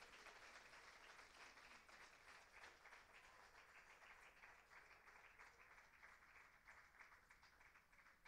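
Audience applauding, dying away to faint scattered claps.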